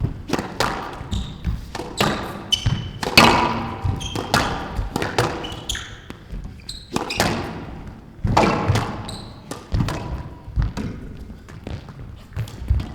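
Squash rally: the hard rubber ball struck by rackets and smacking off the court walls, a quick irregular run of sharp hits, some ringing in the enclosed court.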